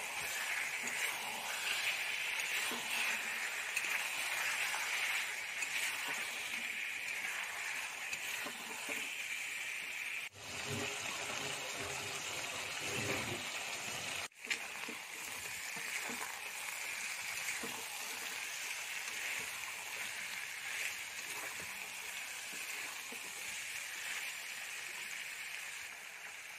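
Marinated mutton pieces in masala and oil sizzling steadily as they fry in a kadhai during the bhuna stage. The sizzle breaks off briefly twice near the middle.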